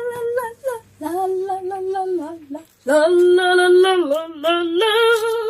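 A woman singing a short tune in a few long held notes, the later ones wavering with vibrato.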